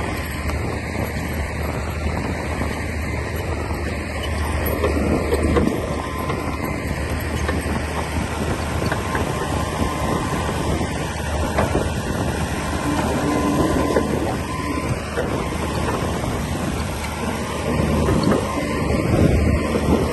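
Komatsu D60P crawler bulldozer working, its diesel engine running steadily under load with irregular clanks and rattles from the machine and its tracks.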